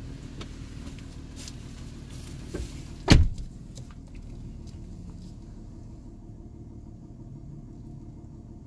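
A car door slams shut once about three seconds in, preceded by a few light clicks and knocks, over the steady low hum of an idling engine.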